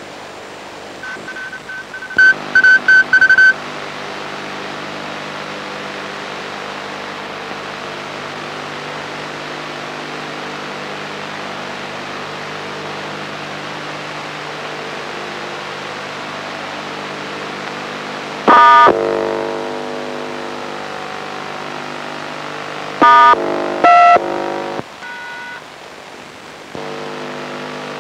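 A run of short, loud touch-tone (DTMF) beeps from a handheld encoder keypad, keyed to call up the ATV repeater's colour bars. A steady low buzzing hum follows, broken by a loud tone burst past the middle and two more near the end.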